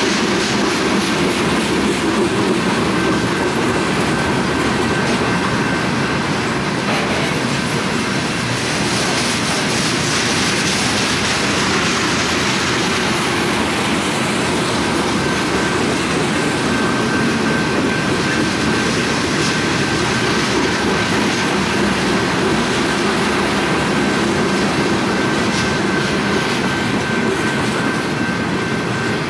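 A train's cars rolling steadily past on the rails, with wheel rumble and clatter and a thin, steady high-pitched ring that is plainer in the second half.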